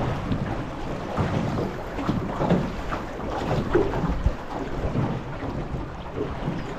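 River water rushing and splashing around a small aluminium boat drifting down rapids, with wind buffeting the microphone into a low rumble.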